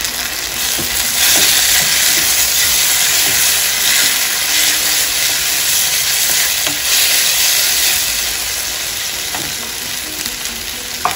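Freshly added chopped tomatoes sizzling in hot oil with fried garlic and onion in a wok, with a spatula stirring and scraping through them. The sizzle swells about a second in and eases near the end, with one short tap near the end.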